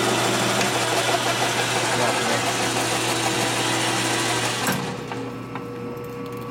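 Machine tool running and cutting metal, a steady noisy cut over the motor's hum. About four and a half seconds in, the cutting noise stops suddenly and the machine runs on with a steady hum.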